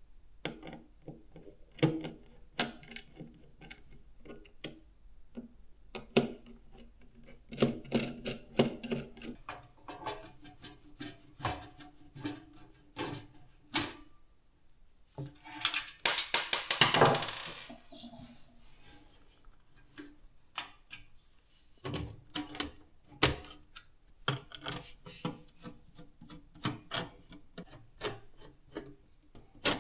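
PC components and hardware being handled and fitted by hand: scattered clicks, knocks and rubbing of plastic and metal parts. About 16 s in there is a louder rapid ratcheting rattle lasting about a second and a half.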